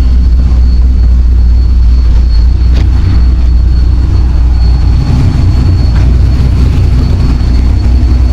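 Corvette V8 with headers idling steadily after an O2 sensor replacement, a loud, even low rumble with a faint steady high whine over it.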